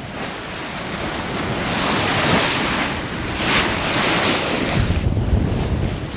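Water rushing and splashing along the hull of a sailboat moving at speed under sail, with wind buffeting the microphone. The wash rises and falls in surges, loudest about three and a half seconds in.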